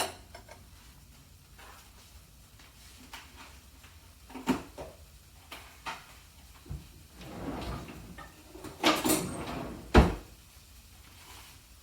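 Kitchen handling noises: scattered light knocks and clicks, a rustling clatter about nine seconds in, then a single sharp knock, like a cupboard, drawer or container being opened and shut.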